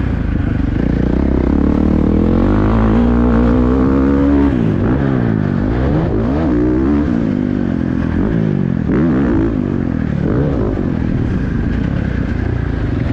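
2023 Husqvarna FC450's single-cylinder four-stroke engine revving up and down while being ridden on a motocross track. The pitch climbs for a few seconds, drops off about four and a half seconds in, then rises and falls several more times through the turns.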